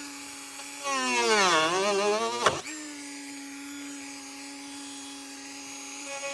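Small electric power tool running with a steady hum; about a second in its pitch sags and recovers as it comes under load. A sharp click or snap comes about two and a half seconds in.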